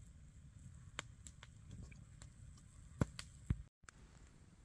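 Campfire crackling faintly with scattered pops, two louder snaps about three and three and a half seconds in, over a low rumble. The sound cuts out for an instant just before the end.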